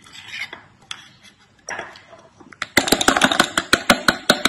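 Metal spoon working dal batter in a small stainless steel bowl: soft scraping, then a rapid run of sharp metallic clinks, about nine a second, for under two seconds starting near the three-second mark.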